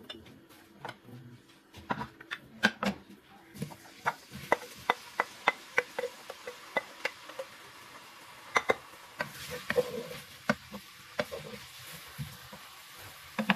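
A wooden spoon knocks and scrapes against the inside of a metal pressure cooker, stirring sliced onions in oil, with repeated sharp knocks about two or three a second. A steady sizzle of the onions frying starts a few seconds in.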